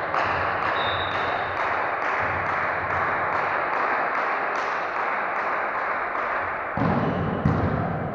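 Volleyball rally in a large echoing sports hall over a steady hiss-like noise, ending with heavy low thuds about seven seconds in as a player dives onto the court floor.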